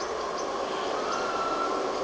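Steady outdoor background noise, with a faint high chirping now and then.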